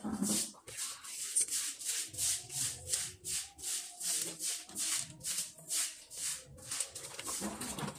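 Rhythmic scrubbing strokes by hand, a dry rasping swish about three times a second.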